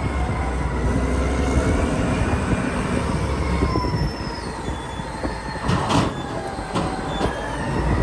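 Caterpillar 992C wheel loader running under load while it works its raised bucket over a dump truck: a deep steady diesel rumble with a high, wavering squeal over it, and a few sharp metal clanks about six and seven seconds in.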